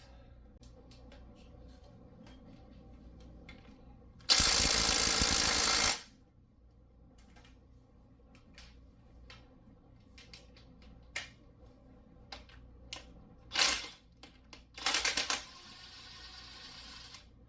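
Cordless impact wrench hammering for about a second and a half, then two shorter bursts near the end, between light metallic clinks of tools and parts on the Ford 5.0 V8's timing end.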